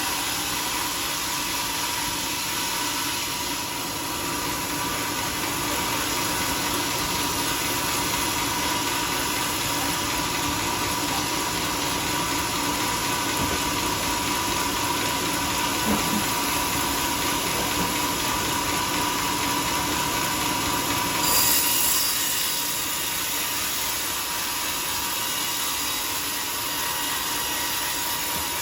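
Sawmill machinery running steadily, with a constant whine. About 21 seconds in there is a brief louder hiss.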